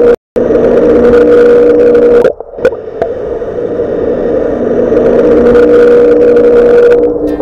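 Underwater fish-repellent device giving off a loud, steady electronic hum: one strong mid-pitched tone with a few weaker tones over a hiss. It cuts out for a moment just after the start and dips briefly at about two and a half seconds.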